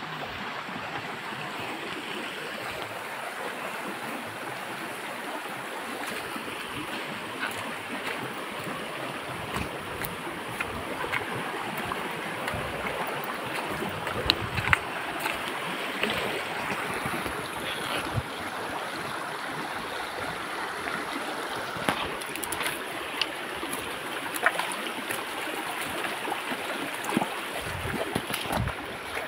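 Shallow mountain stream flowing steadily over rocks, with scattered sharp clicks and knocks.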